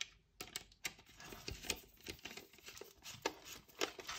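Screwdriver turning a screw into a plastic accessory mount on a helmet shell: a run of small, irregular clicks and scrapes.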